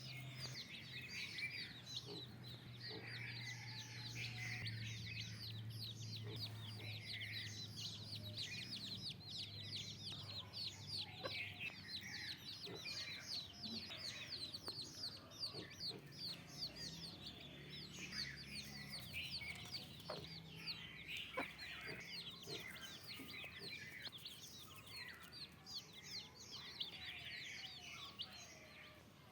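A flock of desi (country) chickens clucking, with constant rapid high-pitched cheeping throughout. A faint low steady hum runs underneath for most of the time.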